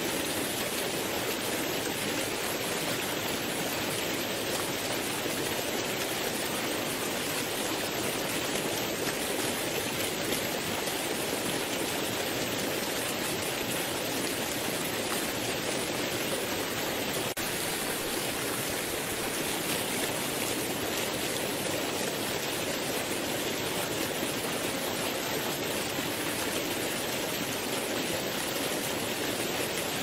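Waterfall: water pouring down in a steady, unbroken rush.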